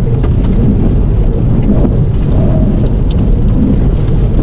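Strong storm wind blasting the camera microphone: a loud, steady low rumble, with a few faint ticks.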